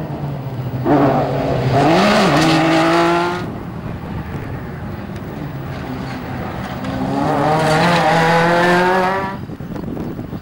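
Rally car engines at high revs, accelerating hard in two loud surges, one about a second in and one around seven seconds in. The pitch climbs through each surge, with a quick up-and-down in pitch about two seconds in. A quieter engine runs between the surges, and the sound falls away near the end.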